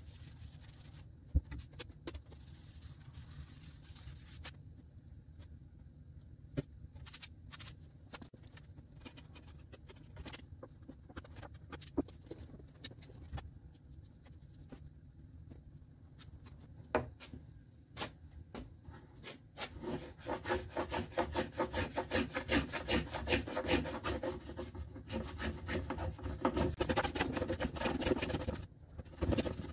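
A hand-held edge tool shaving the edge of a pecan board in quick, rough, repeated strokes. The strokes start about two-thirds of the way in and are the loudest sound; before them there are only faint scratches and small clicks.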